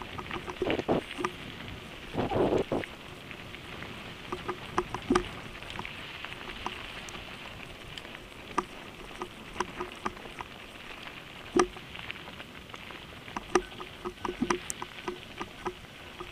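Mountain bike rolling down a loose gravel road: tyres crunching and hissing over the stones, with many sharp clicks and rattles from stones and the bike. Louder bursts of crunching come about a second and two and a half seconds in.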